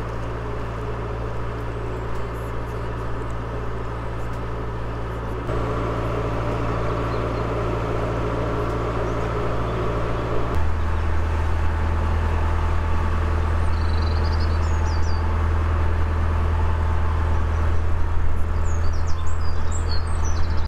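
Narrowboat engine running steadily under way, a low even hum that steps down in pitch about ten seconds in. Birds chirp a few times in the second half.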